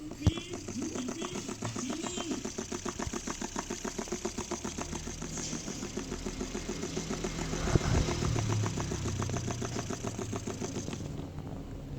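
Small motor driving a homemade cardboard siren, running with a fast, even mechanical rattle. There is a sharp click just after the start, and the rattle stops about a second before the end.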